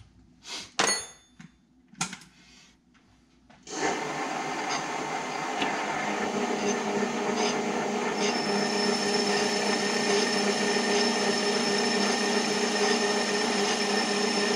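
A few sharp clicks as the controls are set, then about four seconds in a benchtop metal lathe starts and runs steadily, cutting down an aluminum wheel spacer. Faint ticks sound about once a second over the running noise.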